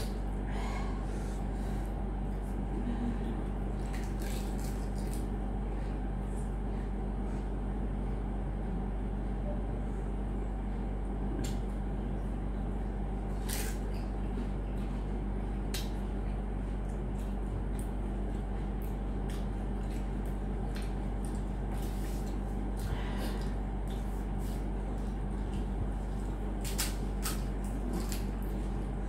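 A steady low hum and hiss, with scattered faint cracks and clicks as crisp pani puri shells are broken open with the fingers and eaten.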